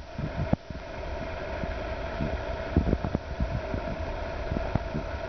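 Wind rumbling on the microphone, over a steady mid-pitched hum, with a dozen or so short soft knocks of hands handling the meter.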